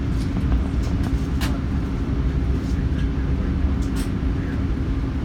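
Cabin noise of an Airbus A380 with its Rolls-Royce Trent 900 engines running, heard inside the cabin: a steady low rumble with a constant hum and a few faint rattles.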